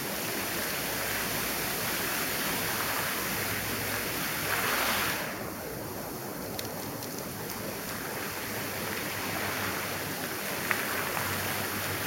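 Fountain water jets splashing, a steady rush of falling water that swells briefly about five seconds in. A single sharp click near the end.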